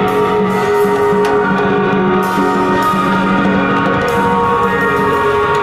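Background music: a band-style track with sustained instrument notes and a sharp hit about once a second.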